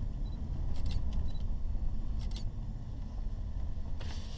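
A vehicle driving on a dry dirt road, heard from inside the cabin: a steady low rumble of engine and tyres, with a few short clicks about a second in and again past two seconds.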